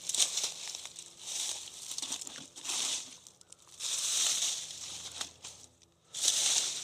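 Footsteps crunching through dry leaf litter, in five slow, separate bursts of dry rustling.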